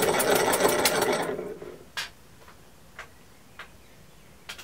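Model double-acting oscillating engine running on compressed air, puffing exhaust in a rapid, even rhythm, then dying away about a second and a half in. A few faint separate clicks follow.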